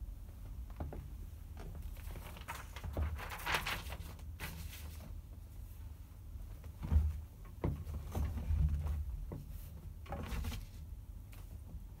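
Paper rustling as sheet music is handled on a grand piano's music desk, with a few soft knocks and clicks over a low steady rumble; no notes are played.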